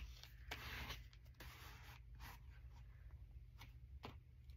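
Faint paper handling: a magazine cutout rubbed and pressed down onto a glue book page, with a few light ticks of paper and fingers.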